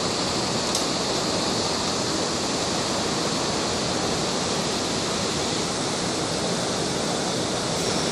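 Steady rushing of running water, an unbroken even noise with no change in level.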